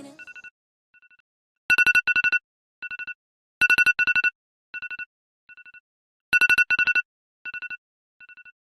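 Mobile phone ringtone: a rapid electronic trill on a fixed pitch, coming in loud double bursts three times, each followed by fainter echoing repeats.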